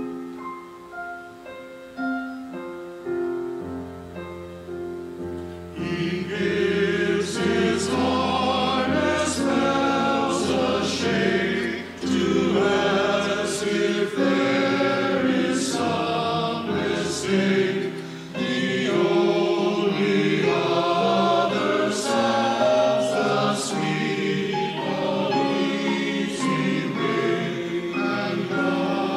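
A choir singing with piano accompaniment: a soft piano introduction, then the choir comes in about six seconds in and sings on steadily.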